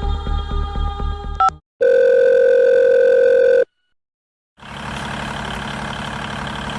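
Background music with a steady beat cuts off, then a loud steady electronic beep like a telephone dial tone sounds for about two seconds. After a second of silence, a vehicle engine starts up and runs steadily at idle.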